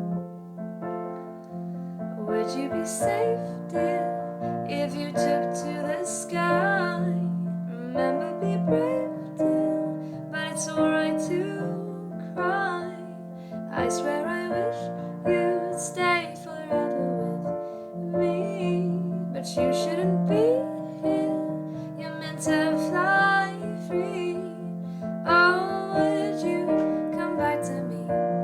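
A woman singing a slow ballad over piano accompaniment.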